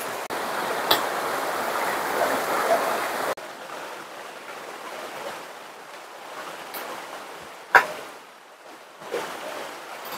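Steady rush of flowing stream water that drops suddenly in level about a third of the way in, with a few sharp knocks, the loudest about three quarters of the way through.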